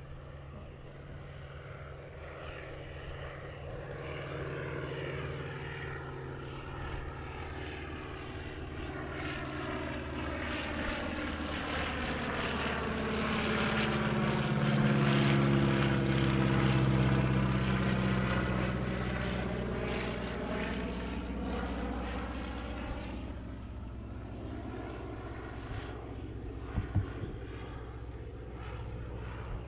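Focke-Wulf Fw 44 J Stieglitz biplane's Siemens-Halske Sh 14 seven-cylinder radial engine and propeller droning as it flies past. It grows louder to a pass about halfway through, its pitch dropping as it moves away, then fades. Two short knocks near the end.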